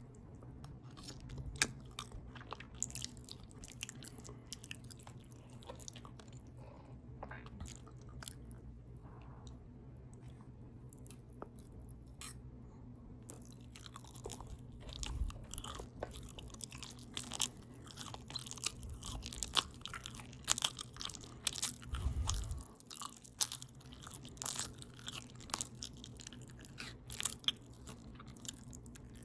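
Close-up open-mouth chewing of a potato taco bowl: wet smacking and crunching, with many irregular mouth clicks over a steady low hum.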